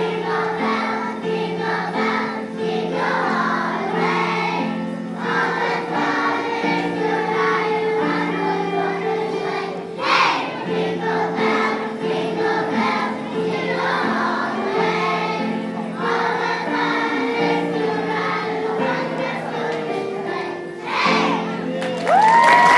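Children's choir singing together over a steady instrumental accompaniment. Applause and a cheer break out just before the end as the song finishes.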